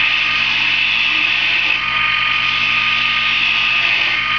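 Wood lathe running steadily, its motor humming with a steady whine, while a wooden lure blank spinning on it is shaped by hand, adding a continuous hiss.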